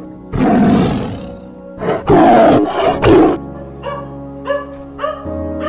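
A lion roaring: four loud roars in the first three and a half seconds, over background music. After that, music continues with short repeated sounds about twice a second.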